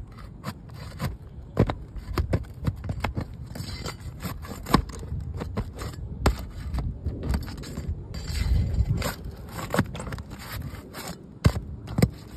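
Metal pry bar scraping and knocking against asphalt shingles as it is worked under them to pry them up: irregular sharp clicks and taps, with longer rasping scrapes about a third of the way in and again past the middle.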